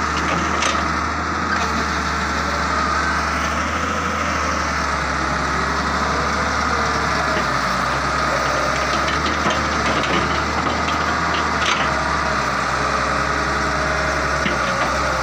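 Daewoo wheeled excavator's diesel engine running steadily while the boom and bucket dig, with a steady high whine over the engine drone.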